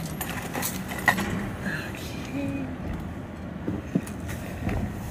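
Car running, heard from inside the cabin as it pulls away, with a sharp click about a second in and a light thump near the end.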